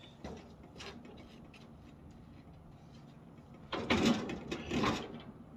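A couple of light knocks of footsteps on a wooden trailer deck, then about four seconds in, two loud scraping rattles in quick succession as a motorcycle is grabbed and shifted on the deck.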